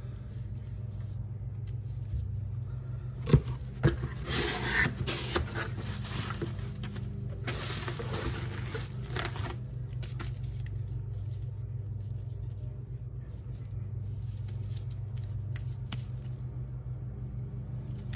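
Two sharp knocks a little over three seconds in, then plastic bubble-wrap packaging rustling and crinkling in two spells as it is pulled off the plates, over a steady low hum.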